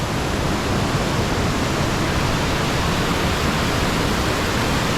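A waterfall in very heavy flow pouring down, a steady full rushing noise.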